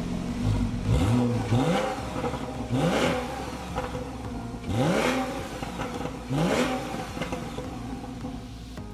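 2014 Porsche 911 Carrera's flat-six engine blipped from idle five times, each rev rising quickly and dropping straight back to idle, to no more than about 5,000 rpm. The revs are not very loud.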